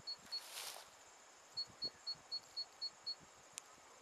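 Adept 22 rocket altimeter in the nose cone beeping out a number in short high beeps. There are two beeps, then a pause, then seven evenly spaced beeps at about four a second, the way such altimeters read out the flight's peak altitude. A brief rustle comes near the start and a single click near the end.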